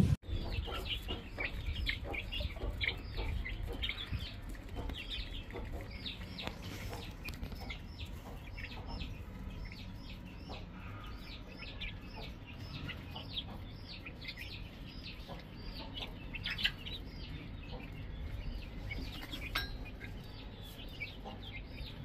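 A group of young, half-feathered chickens peeping continuously: many short, high, falling peeps, several a second, over a steady low rumble.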